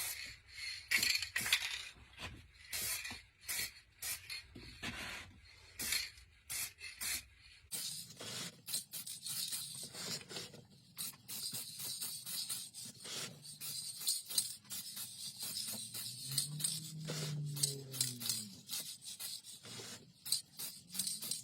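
Aerosol can of chrome silver spray paint fitted with a soft-spray nozzle, hissing in many short repeated bursts, with rubbing and scraping noises in between.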